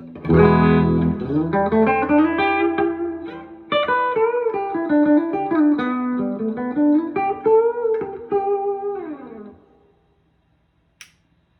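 Electric guitar on its bridge humbucker, unsplit: a chord struck, then a melodic run of single notes with bends, ending about two seconds before the close.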